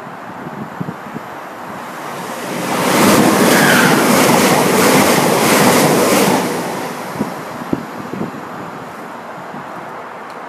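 A train passing the platform at speed without stopping. Its noise swells about two and a half seconds in and holds loud for about four seconds, with a regular beat about twice a second. Then it fades back to wind.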